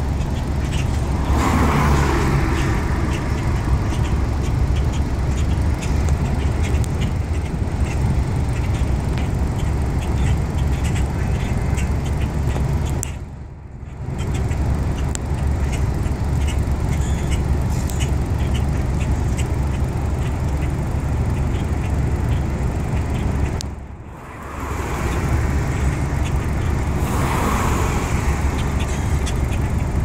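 Street traffic: a steady low rumble of city road noise, with a vehicle passing about two seconds in and another near the end.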